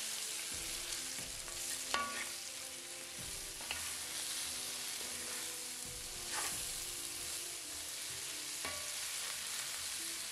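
Shredded white cabbage sizzling in hot oil in a pan while being stirred and tossed with a wooden spatula. The sizzle is steady, with a few sharper scrapes of the spatula against the pan.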